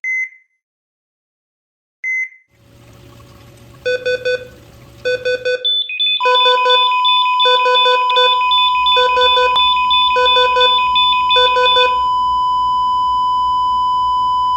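Electronic beeping intro sound: two single beeps about two seconds apart, then rapid groups of pitched beeps over a low hum, settling into one long steady tone that holds alone near the end, like a patient monitor's flatline.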